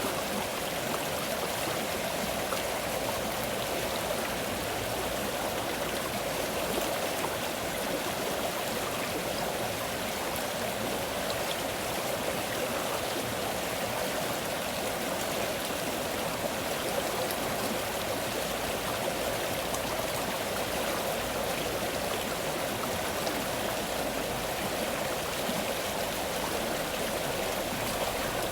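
Flowing stream water: a steady rush with small splashes and trickles.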